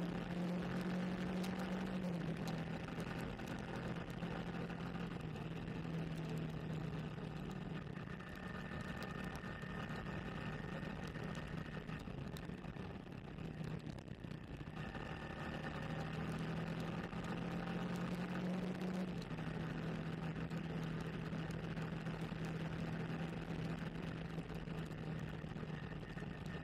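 Sport motorcycle engine running steadily under way, heard from the bike itself over a steady rush of wind and wet-road noise. Its pitch steps down about two seconds in and again about nineteen seconds in, and it eases off and fades for a few seconds around the middle before picking up again.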